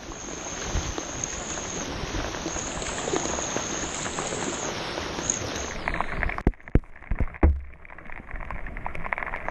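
River water rushing and splashing around a paddled raft, a steady hiss of spray. About six seconds in the hiss thins out and a few sharp knocks follow, the loudest a low thump.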